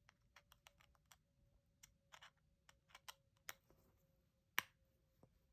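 Faint, irregular small clicks and taps of a screwdriver working at a tight T5 Torx screw in a Ridge wallet's metal plate, with one sharper click about four and a half seconds in.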